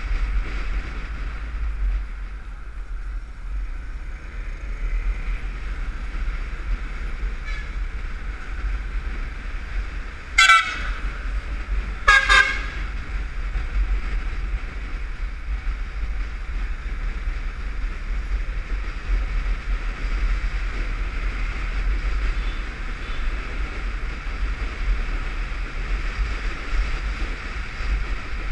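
Wind rushing over the microphone of a camera on a moving motorcycle, a steady low rumble, with a vehicle horn honking twice about ten seconds in, two short beeps a little under two seconds apart.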